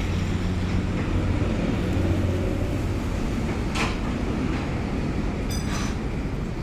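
Steady low mechanical hum with a noisy wash, with a couple of short clicks or knocks near the middle and toward the end.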